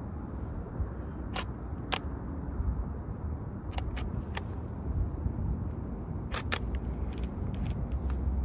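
Canon EOS 60D DSLR being handled and operated: about a dozen sharp clicks from its shutter and controls, coming singly and in quick clusters, over a steady low rumble.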